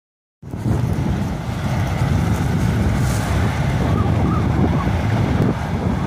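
Wind buffeting the microphone, a loud, uneven low rumble that starts about half a second in.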